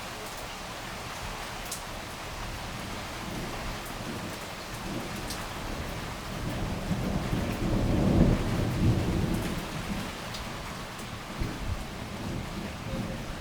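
Heavy rain falling steadily, with a long roll of thunder that builds past the middle, is loudest a little later, then fades into weaker rumbles near the end.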